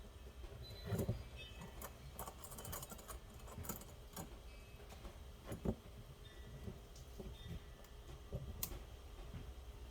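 Scattered clicks, taps and small metallic rattles of small parts being handled, with a louder knock about a second in and another a little before six seconds.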